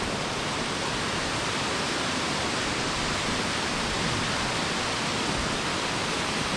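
Steady rushing of a swollen mountain river's fast current, an even wash of noise with no breaks.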